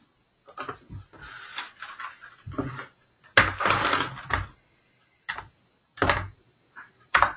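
Irregular clicks and rustling knocks close to the microphone as an answer is typed on a computer keyboard, with a longer burst of rustling noise about halfway through.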